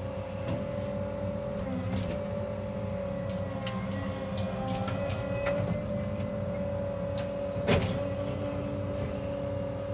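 Cat 306 excavator's diesel engine running steadily under load, with a constant high hydraulic whine over it. Scattered faint cracks and one sharper snap a little before eight seconds in.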